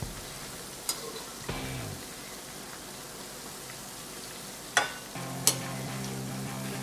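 Semolina vadas deep-frying in hot oil with a steady sizzle, and a metal slotted spoon clinking against the steel pan a few times as they are turned. Background music comes in about five seconds in.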